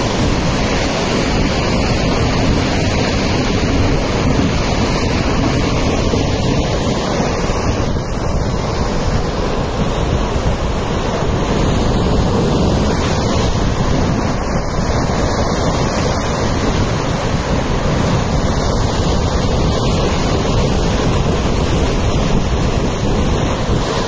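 Steady rushing of a river in flood, its fast muddy water washing over the banks, mixed with wind buffeting the phone's microphone.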